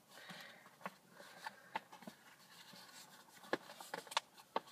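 Faint rustling and scattered light clicks of a paper gift bag being handled.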